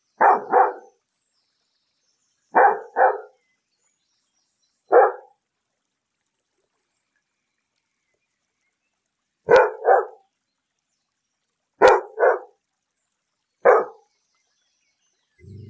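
Labrador retriever barking in short bouts of one or two barks every couple of seconds, with a pause of about four seconds in the middle. Just before the end a quieter low, steady sound begins.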